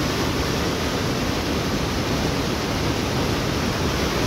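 Flooded mountain stream rushing over rocks close by: a loud, steady, unbroken noise of muddy floodwater.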